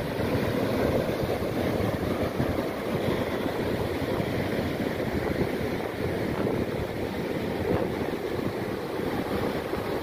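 Rough sea surf breaking and washing up the beach in a steady rush, with wind buffeting the microphone.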